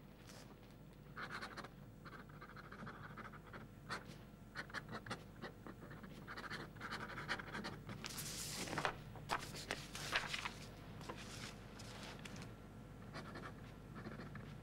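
Metal pen nib scratching on paper in quick, uneven strokes, with a person's audible breathing.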